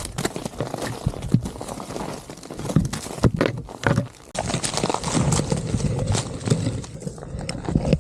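Footsteps of people walking over rough ground, irregular footfalls. A steadier rustling noise joins about four seconds in.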